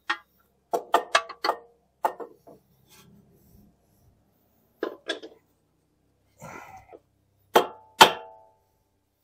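Sharp metal knocks and clanks as a new control arm on a Jeep Cherokee's front suspension is tapped and worked into place. A quick run of knocks comes in the first two seconds, a few more around five seconds, and a scraping rub around six and a half. Two loudest strikes near the end ring briefly.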